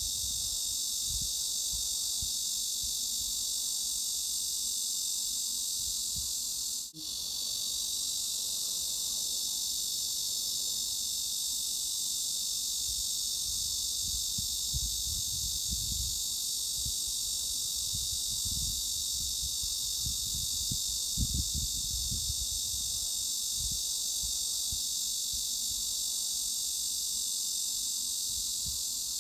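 Cicadas buzzing in a steady, dense, high-pitched drone with an uneven low rumble underneath. The sound drops out for an instant about seven seconds in and again near the end.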